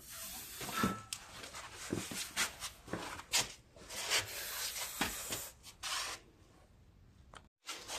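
Irregular rustling and scraping with scattered light clicks, typical of a phone or camera being handled and carried while the person moves, falling to near silence about six seconds in.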